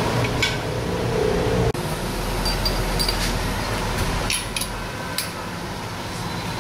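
Steady hum and noise of the workshop background, with a few light metal clicks as transmission shafts and gears are fitted into the aluminium crankcase half.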